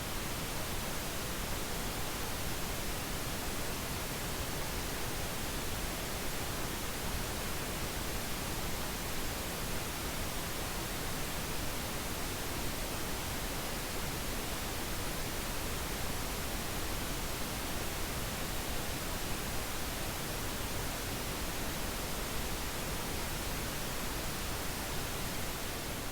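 Pink noise: a steady, even hiss across all pitches, unchanging throughout, played as a tinnitus masking sound.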